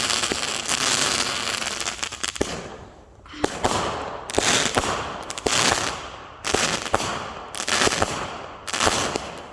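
Fireworks going off: a dense crackle for about the first two and a half seconds, then a run of shots about one a second, each a sharp bang trailing off in a short hiss.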